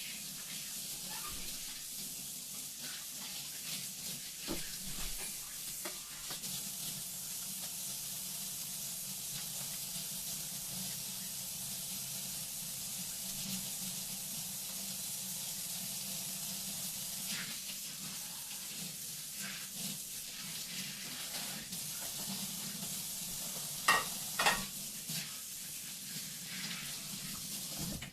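Kitchen tap running steadily into the sink during hand washing, with a few knocks and clanks, two louder ones near the end, before the water is turned off suddenly.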